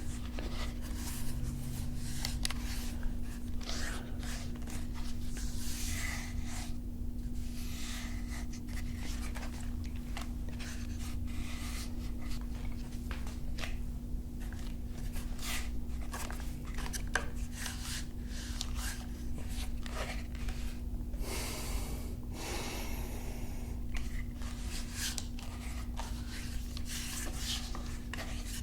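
Handling noises from a Ruger 10/22 .22 rifle: a run of irregular small clicks and knocks, with a longer rubbing, sliding noise about three quarters of the way through, over a steady low hum.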